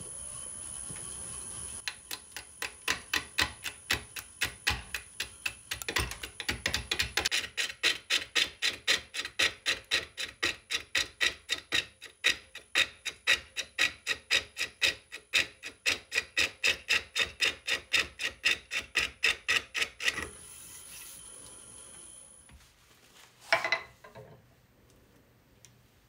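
Rhythmic scraping strokes of a hand tool on wood, about three to four a second, starting about two seconds in and stopping near twenty seconds. One short, loud sound follows near the end.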